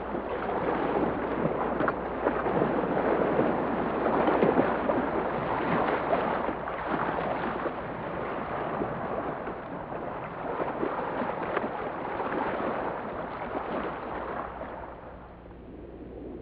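Churning, bubbling water, full of small crackles and pops, fading down near the end.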